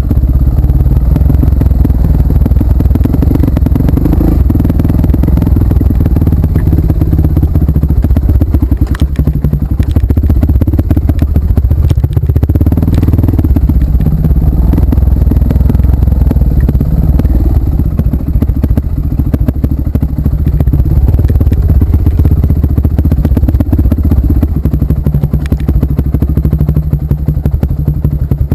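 Off-road trail motorcycle engine running under way, its pitch rising and falling a little, with knocks and rattles from the rough trail.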